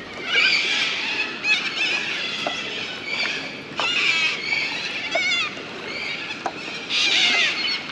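A flock of birds calling over one another: many high, warbling calls, swelling in louder spells about half a second, four seconds and seven seconds in.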